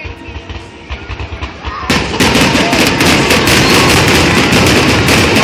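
Aerial fireworks: scattered pops, then a loud burst about two seconds in, followed by dense, continuous crackling.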